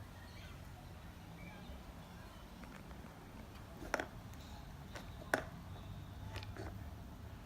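Two sharp clicks about a second and a half apart, then a few fainter clicks, over a low steady hum: the plastic pieces of a Play-Doh barber shop toy set being handled.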